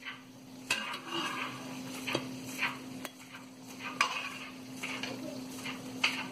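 Spatula scraping and tapping against a nonstick frying pan in a string of short strokes as cooked pancakes are lifted out, over a faint sizzle from the hot pan.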